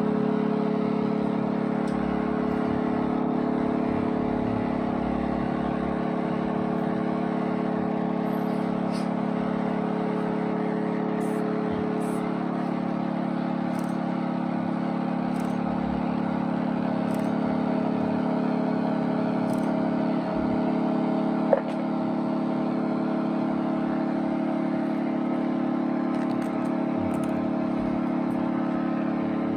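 A steady drone of several held tones, from an electric guitar played through effects pedals, with no melody or beat. A single sharp click sounds about two-thirds of the way through.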